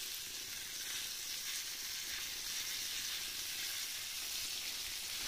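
Flour-dredged long rough dab (flatfish) pieces frying in freshly added oil in a hot pan, giving a steady, even sizzle.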